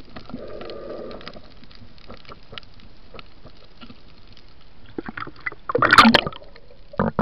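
Underwater sound of a reef at night: a steady crackle of small clicks, then a loud rush of bubbles about six seconds in and a shorter one near the end.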